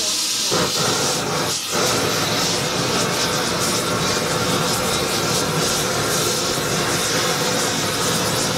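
Propane torch burning with a steady, loud rushing noise, preheating a copper model boiler for silver soldering.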